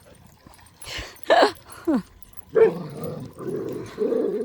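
Dogs vocalizing during rough play: two short yips falling in pitch a little over a second in, then a longer, rough stretch of dog noise.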